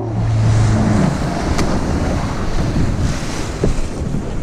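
A small boat moving across open water: wind rushing on the microphone and water noise against the hull, with a low steady hum in the first second.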